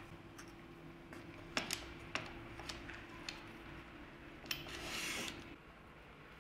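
Hands handling wooden parts on a crosscut sled: a few light knocks and clicks, then about a second of scraping as a wooden piece slides across the sled's base. A faint steady hum underneath stops about five and a half seconds in.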